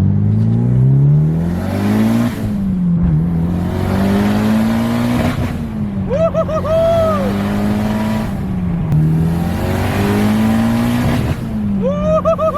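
Turbocharged Mitsubishi Lancer Evolution four-cylinder accelerating hard through the gears. It has a raspy note that rises in pitch and drops at each shift, about four times. Twice a short squealing whistle cuts in, once about six seconds in and again near the end.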